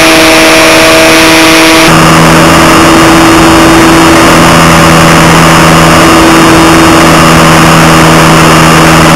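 Aerobird Extreme RC plane's electric motor and propeller running loud and steady, heard up close from the onboard camera over rushing air. About two seconds in the tone shifts lower, as with a change of throttle.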